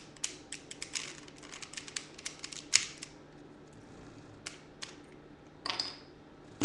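Plastic Rubik's Cube clicking and rattling as its pieces are pried loose with nail clippers, with a sharp snap about three seconds in, then a few scattered clicks.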